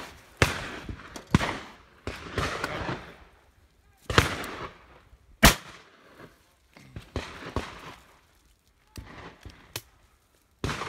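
A string of shotgun shots at driven partridges. Four loud, close shots come in the first six seconds, each followed by a short echo, then a few fainter shots from farther off.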